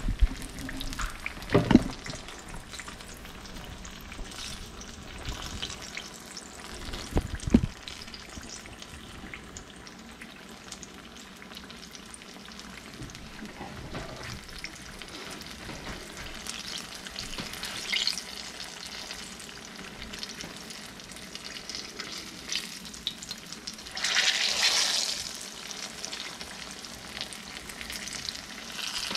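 Hand pies frying in hot grease in a skillet, a steady crackling sizzle. Two sharp knocks come about two and seven seconds in, and the sizzle flares louder for about a second near the end.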